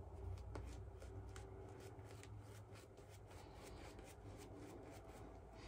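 Faint, quick swishing strokes of a synthetic-knot shaving brush working lather over the face, a few strokes a second.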